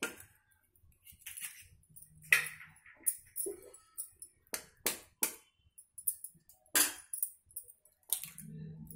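Eggs being cracked against the rim of a small bowl: a string of sharp taps and shell cracks at uneven gaps.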